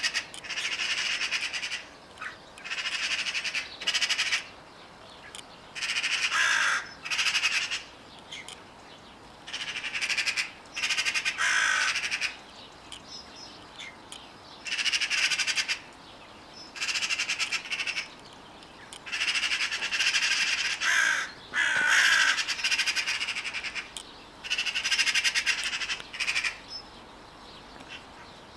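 Crows cawing harshly again and again, in bursts of calls a second or two long separated by short pauses.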